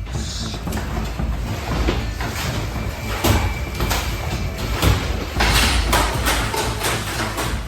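A building shaking in an earthquake: continuous rattling, clattering and banging over a low rumble, swelling louder after about five seconds.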